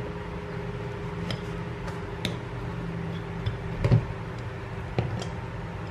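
A knife cutting through a waffle on a ceramic plate: scattered light clicks and taps of the blade against the plate, with a louder knock just before four seconds in as the knife is set down, over a steady low hum.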